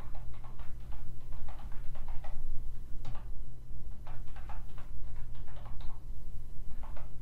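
Computer keyboard keystrokes, typed in irregular quick runs with short pauses, over a steady low electrical hum.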